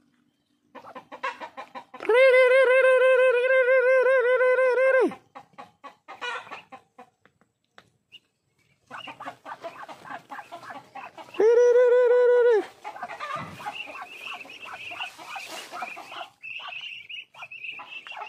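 Poultry calling: a loud, long, level call lasting about three seconds and a shorter one of about a second later on, with many short, softer clucks and calls around them and thin high chirps near the end.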